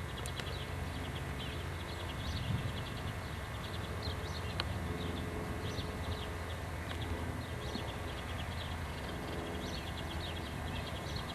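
Outdoor neighbourhood ambience: many short bird chirps over a steady low mechanical hum, such as a distant engine.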